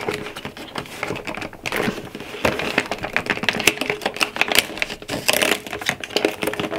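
Fingernails and fingertips tapping and scratching on a cardboard advent calendar while a door is pried open, making a rapid, irregular run of clicks and crackles of the card.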